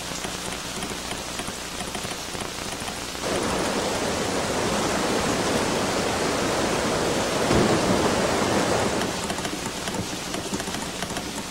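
Steady rain, with a louder rush of flood water joining it about three seconds in and easing off near the end; a single low rumble comes midway through.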